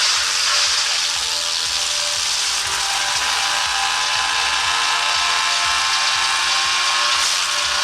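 Woodchipper running steadily at a constant pitch.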